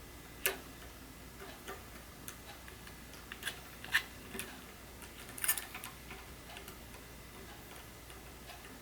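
Irregular small clicks and taps of handling during a phone screen repair: hand tools and small phone parts knocking on a work surface. They come unevenly, with the sharpest about half a second in, around four seconds in, and a quick cluster about five and a half seconds in.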